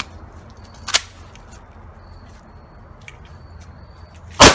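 A couple of sharp clicks, then near the end a single 12-gauge shotgun shot, a loud blast with an echoing tail, firing a custom shell loaded with button-cell batteries.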